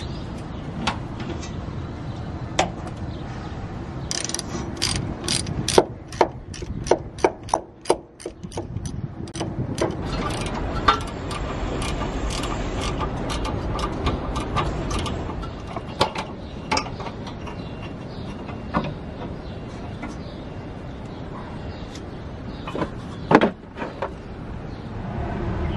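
Ratchet wrench clicking in quick runs while it turns out the bolts of a car's rubber rear brake hose, with scattered single clicks afterwards and a couple of sharper metal knocks near the end.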